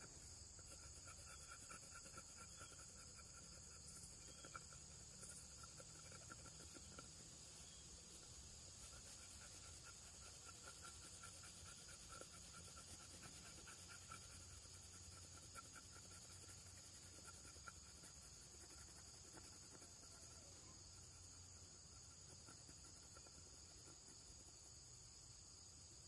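Near silence: a faint steady high-pitched hiss with faint quick pulses running through it.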